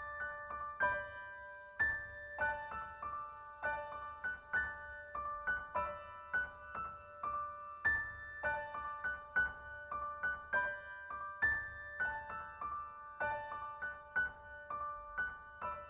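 Background music: a gentle piano melody, its notes struck about twice a second and left ringing.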